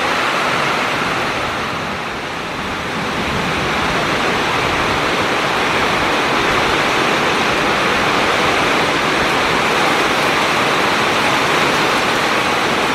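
Heavy rain pouring down in a windstorm: a steady, loud hiss of rain, easing slightly about two seconds in.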